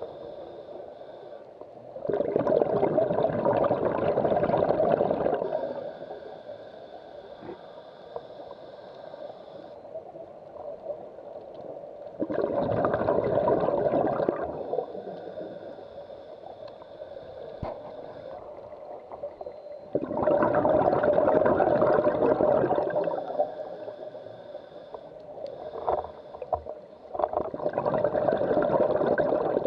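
Scuba diver breathing through a regulator underwater: exhaled bubbles rush out in four bursts of about three seconds each, one roughly every eight seconds, with a quieter steady hiss between them.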